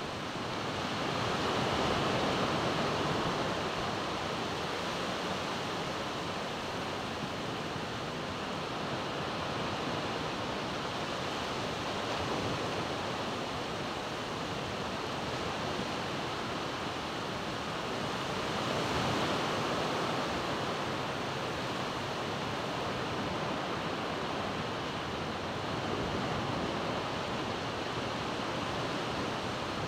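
Ocean surf washing steadily, a continuous rush that swells slightly about two seconds in and again about two-thirds of the way through, with some wind.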